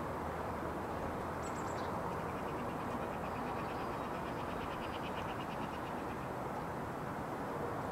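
Steady outdoor background noise, with a faint, rapid trilling call of a distant bird from about two seconds in until about six and a half seconds in.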